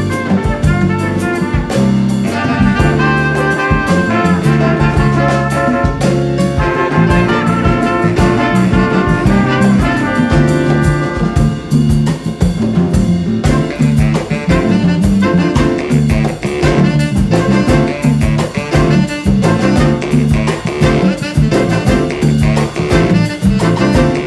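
A small band playing an arrangement of a Nigerian Ogu song: two trumpets and saxophones carry the melody over piano, electric bass, congas and drum kit, with a steady beat.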